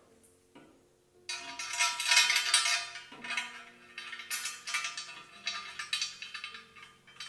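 Metallic clinking and rattling of engine parts being handled during assembly, starting sharply about a second in and loudest for the next two seconds, then continuing in smaller bursts. Soft background music with held notes plays underneath.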